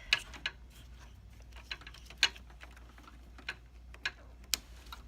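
Irregular sharp clicks and knocks of metal and plastic parts being fitted back into a Dell PowerEdge SC1430 server case during reassembly, about eight in all, the loudest right at the start and a little over two seconds in.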